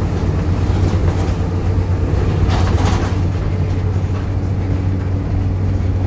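Volvo B7RLE bus's six-cylinder diesel engine running under way with a steady low drone, heard from inside the passenger cabin, with a short burst of rattling about two and a half seconds in.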